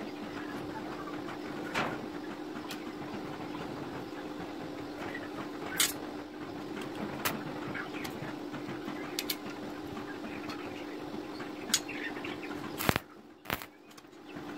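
Steady low hum with scattered light clinks of steel rods being handled. About 13 s in come two sharp cracks as an arc-welding electrode strikes a steel rod and throws a spark, and the hum drops away briefly.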